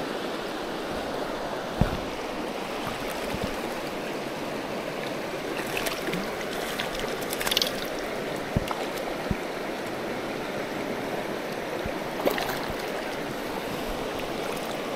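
Shallow mountain river rushing steadily over rocks in a riffle. A few sharp, scattered clicks and knocks sound over it.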